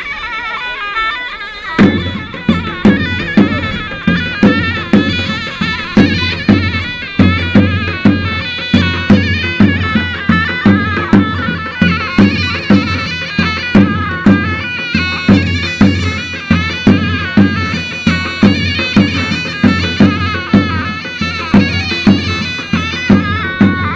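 Turkish folk dance music on davul and zurna: a shrill, wavering reed melody, joined about two seconds in by a deep bass drum beating a steady rhythm, about two strokes a second.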